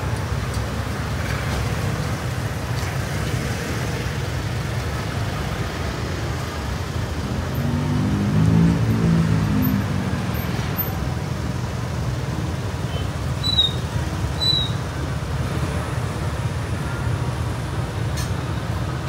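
Street ambience dominated by a steady low traffic rumble. A motor vehicle's engine swells and passes, loudest about eight to nine seconds in, and two short high squeaks come about two-thirds of the way through.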